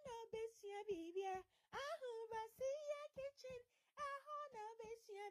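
A high-pitched voice singing an unaccompanied, bouncy tune in short syllables: a sung intro jingle for the channel.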